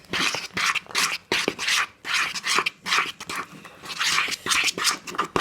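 Slime mixture being stirred in a bowl with a mixing tool: repeated scraping, squelching strokes about twice a second.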